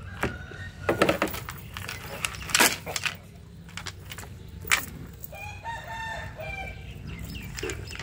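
A rooster crows once, a drawn-out call of about a second and a half past the middle. Before it come a few sharp knocks and rustles from a cast net full of fish being handled in a boat.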